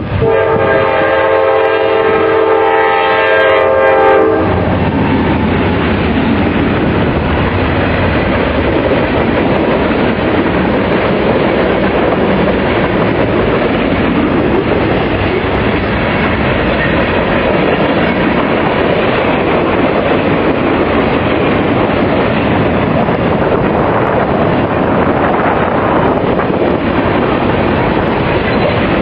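Norfolk Southern train's locomotive horn sounding one chord for about four seconds, then the train running past with a steady rush of wheel and rail noise, heavy wind hitting the microphone throughout.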